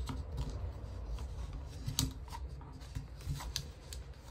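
Chenille-stem pipe cleaner being twisted by hand around a wooden paint stick: faint scratchy rubbing with a few small clicks and scrapes.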